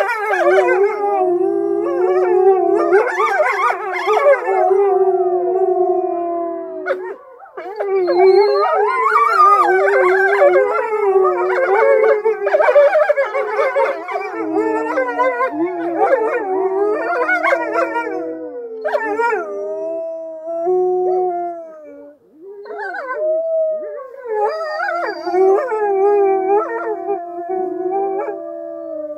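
A pack of grey wolves howling in chorus: several long, held howls overlapping, with higher wavering and gliding voices on top. The chorus drops away briefly twice and starts up again.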